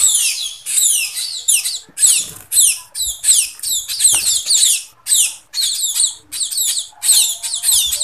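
Young munias (emprit) chirping in rapid high-pitched squeaks that fall in pitch, in short bursts about two to three a second. This is the impatient begging of hand-reared fledglings at feeding time.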